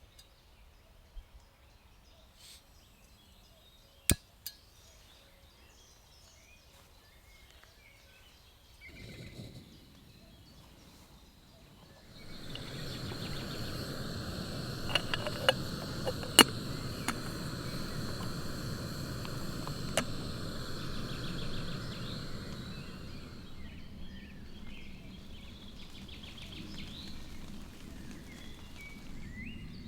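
Small camping gas stove: a few sharp clicks, then a steady hissing rush of the burner that starts suddenly about twelve seconds in and drops lower after about twenty-four seconds, with several light metallic clinks of a pot or cup on it.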